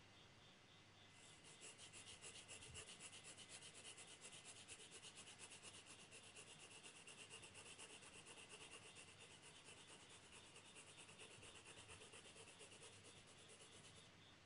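Faint graphite pencil scratching on drawing paper in quick, even back-and-forth shading strokes. The strokes start about a second in and stop near the end.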